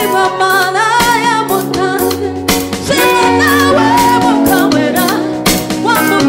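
Gospel song: a lead vocal with wavering vibrato over a band with sustained bass notes and a steady beat.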